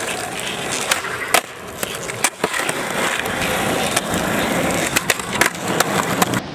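Skateboard wheels rolling over rough asphalt, a steady grinding rumble. Several sharp clacks of the board against the ground are scattered through it.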